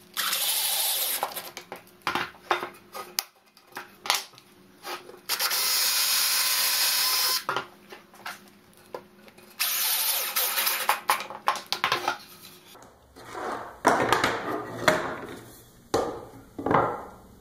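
Cordless drill running in three short bursts, boring pilot holes through a pine board into a wooden bracket, followed by scattered wooden knocks and clatter as the pieces are handled.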